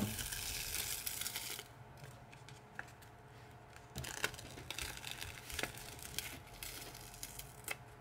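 Crinkly material rustling as it is handled, with a few light sharp clicks or taps in the second half.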